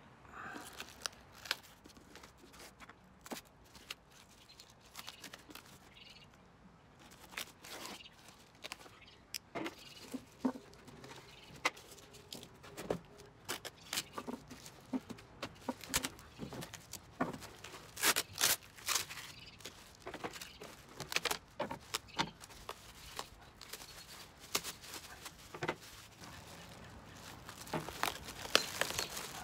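Plastic shrink wrap and cardboard packing being cut, torn off and crinkled from flat-pack wooden crate panels, in scattered bursts of rustling with light knocks as the panels are handled.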